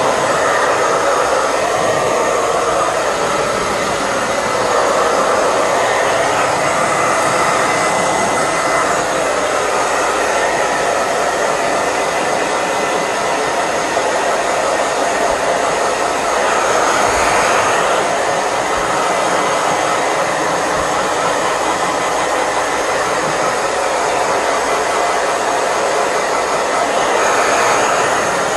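Handheld hair dryer running steadily, a loud rush of air with a faint high whine, swelling slightly now and then as it is moved over a wet dog's fur.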